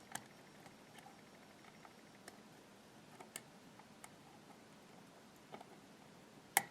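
Faint, scattered clicks and ticks of a pick working the pins of an IFAM dimple lock cylinder under tension, with one sharper click near the end as a pin sets and the plug turns slightly.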